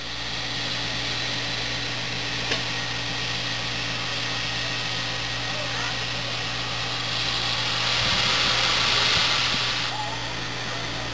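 Southern Railway 4501, a 2-8-2 Mikado steam locomotive, simmering with a steady hiss of steam over a low hum and a regular low pulsing. The steam hiss grows louder for a few seconds in the second half.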